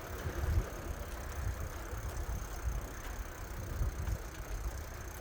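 Wind buffeting the microphone of a camera carried on a moving bicycle, an uneven low rumble from the ride.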